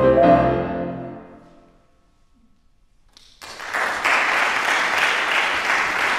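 The last chord of a euphonium and piano piece fades away over about two seconds. After a moment of near silence, the audience breaks into steady applause about three and a half seconds in.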